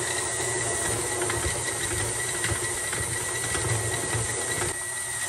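Electric stand mixer with a flat paddle beater running steadily as it beats a stiff butter-and-flour cookie dough; its tone shifts slightly near the end.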